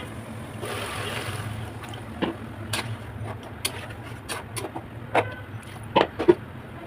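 Scattered sharp clicks and knocks over a steady low hum, with a short hiss about a second in.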